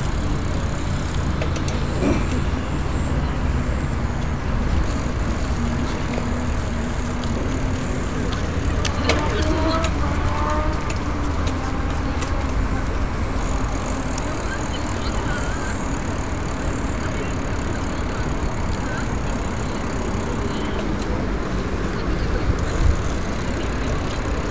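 Riding noise from a bicycle in motion: a steady rumble, with the bike's chain lock rattling as a run of faint ticks.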